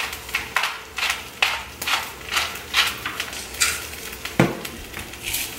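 Seasoning being shaken out over eggs in a frying pan: a run of short shakes, about two a second, with one sharper knock about four and a half seconds in.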